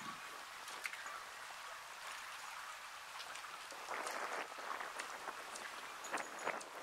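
Steady outdoor hiss, with short rustling bursts about four seconds in and twice more near the end, and faint high ticks.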